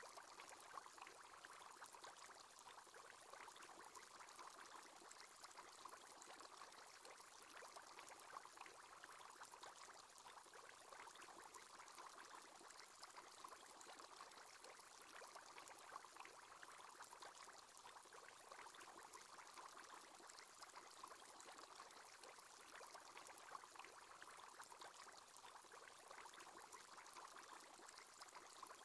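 Faint, steady bubbling water: the aerator bubble-column sound effect of the aquarium screensaver.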